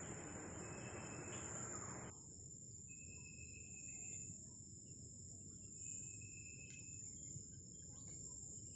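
Faint, steady high-pitched trilling of crickets, with a few short chirps over it. A low hiss underneath cuts off suddenly about two seconds in.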